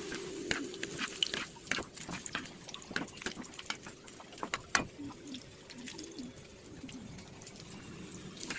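Irregular sharp wet clicks and drips of liquid, a few a second, from food being prepared in the kitchen.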